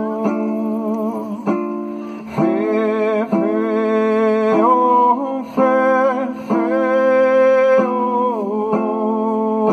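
Man singing long held, wavering notes that enter about two seconds in, accompanying himself on a kravik lyre plucked about once a second over a steady ringing drone.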